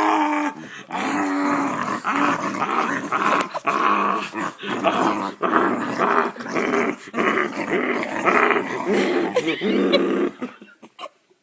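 Part-pit-bull dog growling in play, a loud rough growl that runs almost without a break and shifts up and down, with several short slaps mixed in; it stops shortly before the end.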